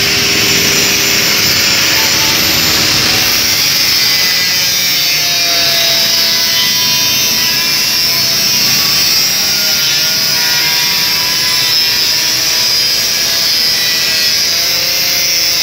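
Handheld angle grinder with a cutting disc cutting through stainless steel sheet: a loud, steady grinding hiss over the motor's whine, which wavers slightly in pitch.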